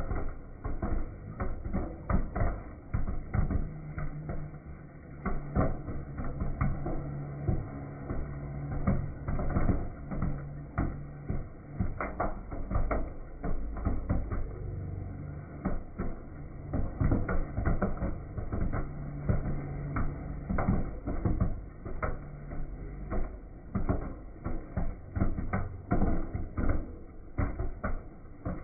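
Kettle popcorn machine in full pop: a dense, irregular run of sharp pops and clatter as kernels burst and popcorn spills out of the kettle, over a low hum that comes and goes.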